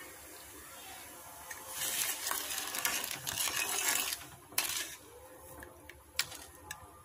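Steel perforated skimmer stirring hot sugar syrup in a steel pan, scraping and clinking against the metal, louder for a few seconds, then a couple of sharp clinks. The syrup is being cooked down toward a light one-string consistency.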